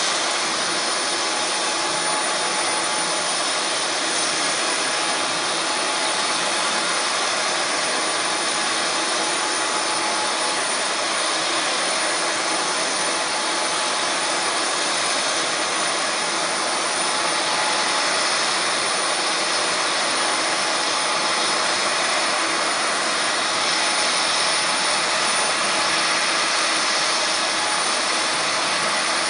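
Lockheed C-5M Super Galaxy's General Electric CF6-80C2 (F138) turbofan engines running: a steady, even rush of jet noise with a constant whine over it.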